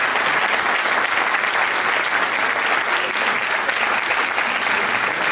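Audience and panel applauding: many people clapping hands together in a dense, steady patter.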